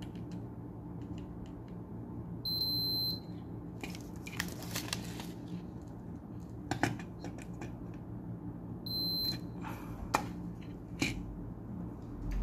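Digital multimeter's continuity buzzer beeping twice, a longer beep about two and a half seconds in and a shorter one near nine seconds, as the test probes touch freshly soldered diode joints: the beep signals an unbroken connection. Between the beeps come clicks and rustles of the probes and the circuit board being handled.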